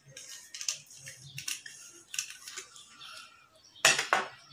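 Small clicks and rustles of tableware being handled on a table, then a louder clatter of two or three sharp strokes about four seconds in as a small glass shot glass is picked up from the table.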